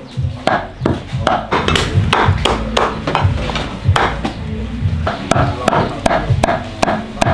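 A knife chopping meat in a steady run of sharp strikes, about three a second: pork being minced by hand.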